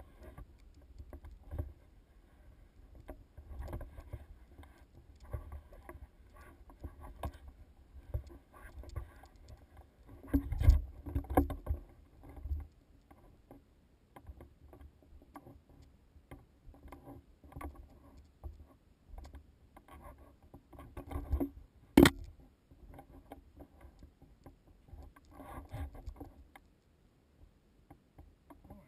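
Irregular scuffing footsteps and bumps of hikers moving over rock and gravel, mostly dull and low, with a single sharp knock about three-quarters of the way through.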